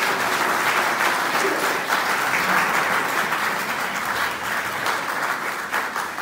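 An audience applauding steadily, a dense patter of many hands clapping in a hall.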